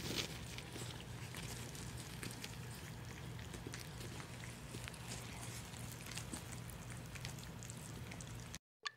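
Several puppies lapping and licking soft weaning mush off a plate: scattered small wet clicks and smacks over a steady low hum. The sound cuts out briefly near the end.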